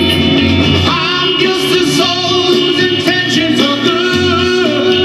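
Rock band music: a male voice singing long, bending lines over guitar, bass and drums.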